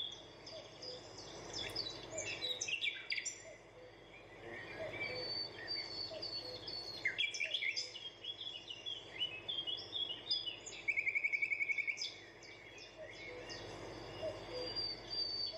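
Birds chirping and singing, several calls overlapping, with a fast repeated trill about eleven seconds in, over a steady background hiss.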